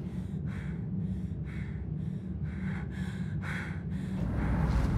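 A person breathing hard and fast, about two sharp breaths a second, over a steady low hum, with a louder rush of sound near the end.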